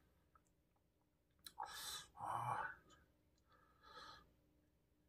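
A man's quiet breathing: a breathy exhale about a second and a half in, a short low hum just after it, and a fainter breathy sound near four seconds.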